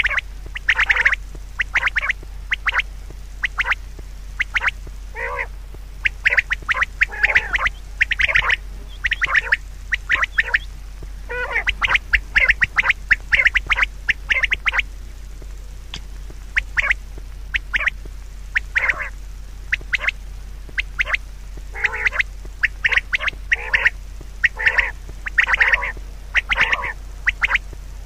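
Birds giving many short, harsh calls in quick runs, over a steady low hum.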